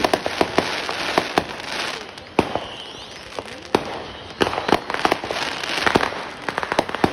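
Aerial fireworks bursting: rapid sharp pops and crackling. One louder bang comes about two and a half seconds in, followed by a short lull before the popping thickens again.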